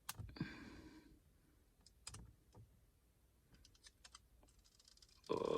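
Fingernail picking and clicking at the edge of an old plastic screen protector on a car's touchscreen: a scatter of faint, small clicks. Near the end a louder, steady rasp starts as the film begins to peel away.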